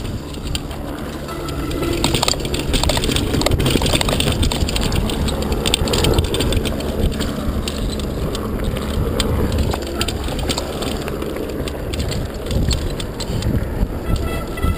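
Mountain bike descending a dry dirt trail at speed: a steady rush of tyres on dirt and moving air, with constant rattling and clicking from the bike over bumps.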